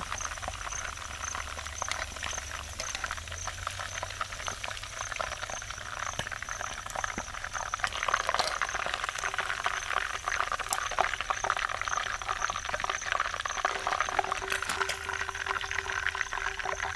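Chicken pieces deep-frying in hot oil in a cast-iron pan, the oil sizzling and crackling steadily and growing louder about halfway through.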